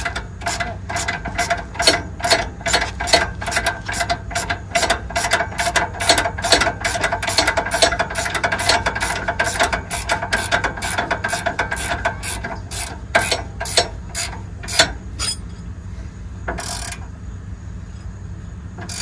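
Hand ratchet wrench clicking in quick, even strokes as fasteners are tightened, a few clicks a second, stopping about three-quarters of the way through. A short burst of noise follows near the end.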